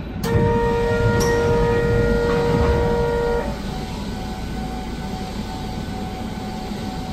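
Train horn sounding for about three seconds, starting with a sharp click, over the steady rumble of the train.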